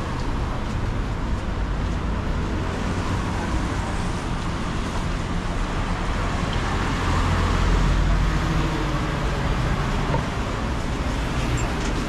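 Road traffic passing on a wet street: a steady wash of tyre and engine noise, with a louder vehicle swelling past about seven to nine seconds in.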